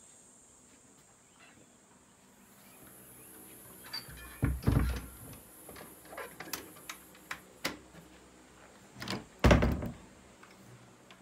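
A wooden door or cupboard being handled: two heavy thuds about five seconds apart, with several lighter clicks and knocks between them.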